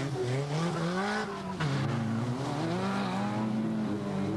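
Autocross race car engines revving hard under acceleration on a loose gravel track. The pitch climbs, drops abruptly about a second in at a gear change, then climbs again and holds high.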